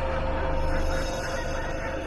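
Eerie ambient soundscape: a steady dark drone with one held mid-pitched tone over a dense low rumble.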